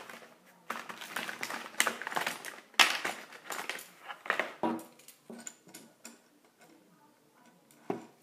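Stiff plastic blister packaging being pried open and the toy worked out of it: bursts of crackling and sharp clicks, thinning out after about four seconds.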